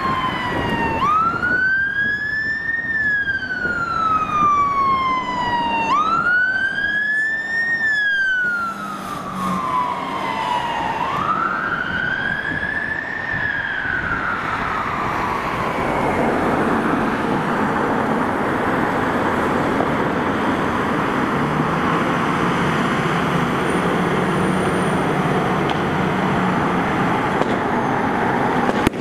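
A fire engine's siren on a slow wail. It goes through three rise-and-fall cycles, each climbing quickly and falling slowly over about five seconds. It then fades out about halfway through, leaving a steady rush of road noise.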